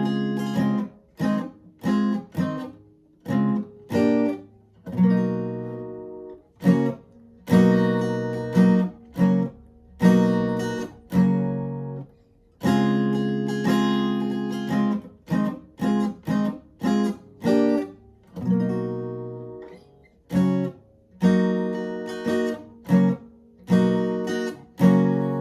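Guitar tuned a half step down, strumming a chord riff: some chords ring for a second or two, others are short stabs muted sharply between hits.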